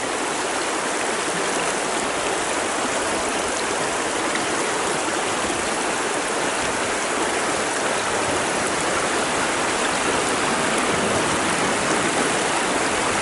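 Steady rush of river water flowing over rocks, a dense even hiss with no let-up.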